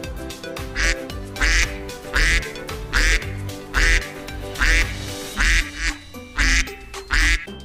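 Domestic duck quacking about nine times, a bit more than once a second, over background music.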